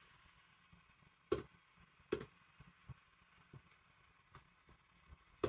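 Faint, scattered computer clicks, about half a dozen, the two clearest about one and two seconds in.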